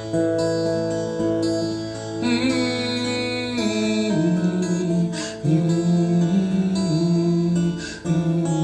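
Steel-string acoustic guitar playing the instrumental ending of a folk song, with held chords and notes ringing and changing every second or so.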